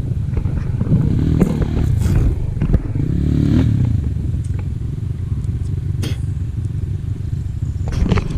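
Dirt bike engine running as the bike is ridden, swelling briefly about three seconds in, with scattered sharp knocks and clatter over it.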